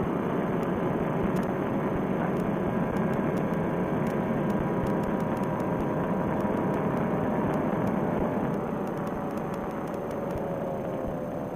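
Fresh Breeze Monster paramotor trike's engine and propeller running steadily in flight with wind noise, easing a little in level and pitch near the end.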